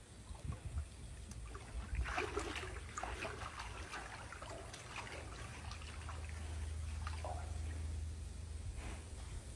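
Water sloshing and splashing in a galvanized metal stock tank as a jaguar wades through it. The splashing is busiest about two seconds in, with a steady low hum underneath later on.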